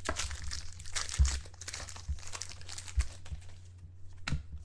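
A foil trading-card pack being torn open, its wrapper crinkling and crackling, with a few light knocks of handling.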